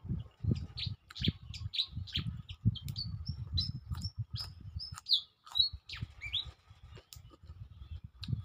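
Small birds chirping again and again in short high calls, with a few longer whistled notes in the middle, over irregular low thumps and rustles close to the microphone.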